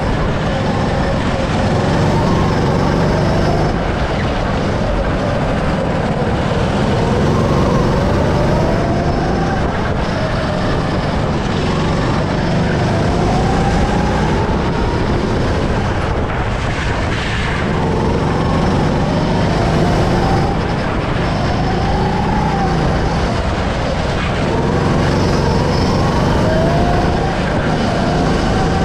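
Go-kart running at speed, heard from the driver's seat: its motor pitch climbs repeatedly on the straights and drops back into the corners, over a steady low rush of wind and driving noise.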